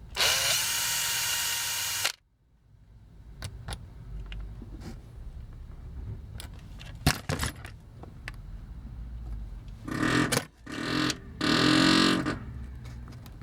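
A small electric drill runs steadily for about two seconds, boring into a toy's rivet, then cuts off sharply. Light handling clicks follow over a low rumble, and near the end come a few louder bursts of noise.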